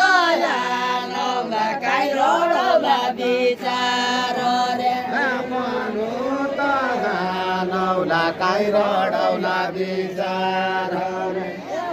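Deuda folk song sung unaccompanied by a group of men and a woman in unison, in long drawn-out held notes that bend slowly up and down.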